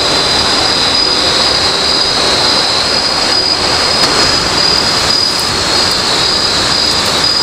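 Steady high-pitched drone of night insects, with a constant rushing hiss underneath.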